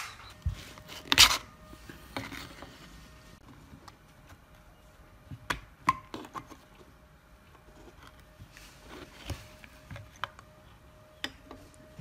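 Handling noise from a refrigerator's plastic fan-motor housing being taken apart: scattered knocks, clicks and taps of hard plastic and metal parts against a wooden table, the loudest knock about a second in.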